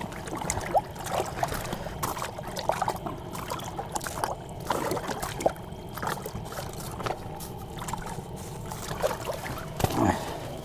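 Water splashing and trickling in an ice-fishing hole as a small lake trout is grabbed and lifted out by hand, with irregular small clicks and knocks throughout.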